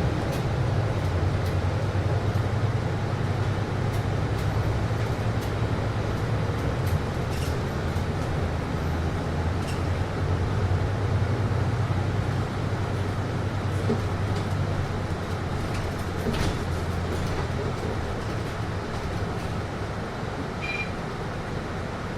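Steady low hum and even rush inside a city bus cabin, from the air conditioning and the bus's running engine, with a few faint clicks and rattles.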